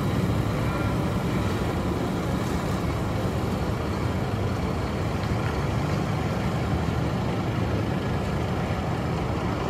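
Diesel engine of a large intercity bus running, a steady low rumble.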